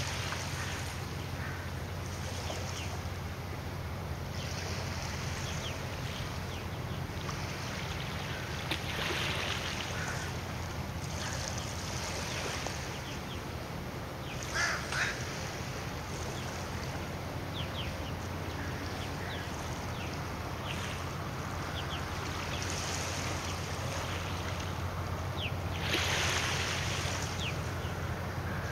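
Steady low drone of a ferry's engines under wind and water noise, with two short bird calls close together about halfway through.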